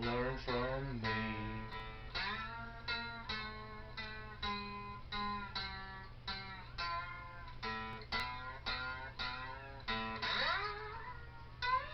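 Guitar music: a run of plucked notes, a few every second.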